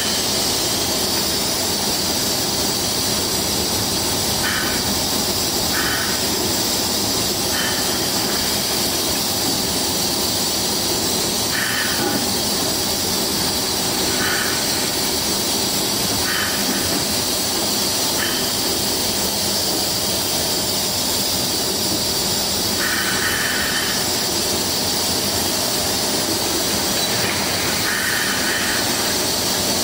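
Train running, heard from inside the driver's cab: steady running and track noise with short squeals every second or two, from the brakes held on lightly so that they rub.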